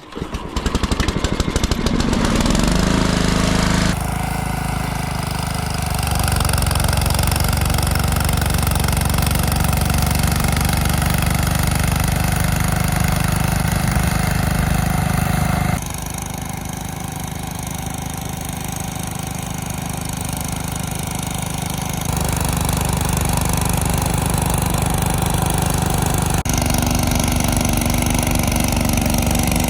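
An engine running steadily. Its tone changes abruptly about 4, 16 and 22 seconds in.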